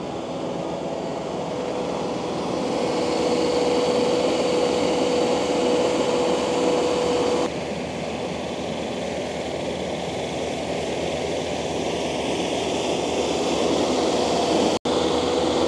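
Takeuchi TL12 V2 track loader running hard, driving a high-flow hydraulic grinding attachment that is cutting deep into the soil. It is a steady heavy machine noise with a whine. The sound shifts abruptly about halfway through and cuts out for an instant near the end.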